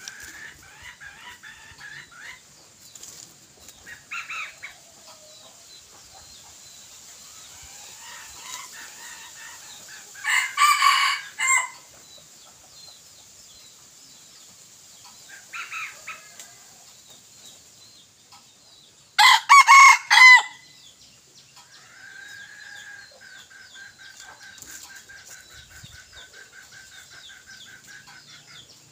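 Rooster crowing twice, loud and broken into short segments, about ten seconds in and again just before twenty seconds, with softer clucks in between. The birds are junglefowl-type decoy roosters.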